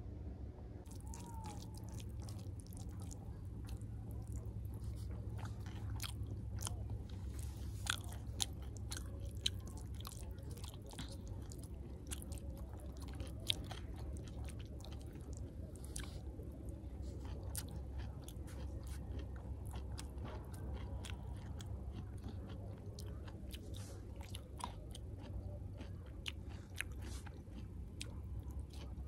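Many irregular, crisp crunches and clicks over a steady low rumble, starting about a second in.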